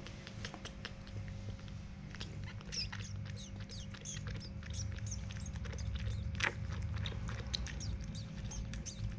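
Baby monkey sucking milk from a feeding bottle: irregular small wet clicks and smacks from its mouth working the teat, over a low steady hum.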